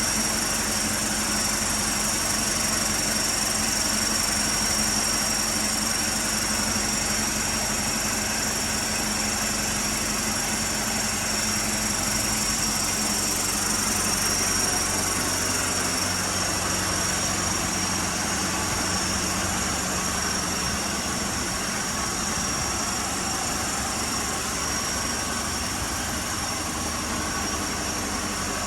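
A vehicle engine idling steadily, with a constant thin high-pitched whine over it.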